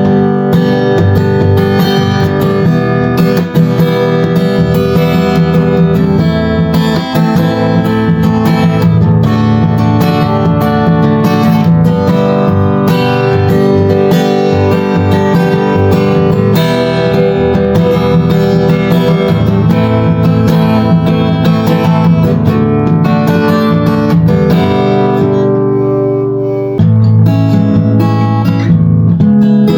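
Chinese-made copy of a Martin D-45 steel-string dreadnought acoustic guitar being strummed through a run of ringing chords, with a brief break about 27 seconds in before the next chord.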